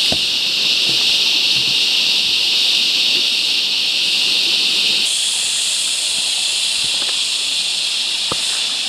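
Cicada chorus in the bush: a loud, steady, high-pitched droning hiss that brightens after a cut about five seconds in, with a few faint ticks near the end.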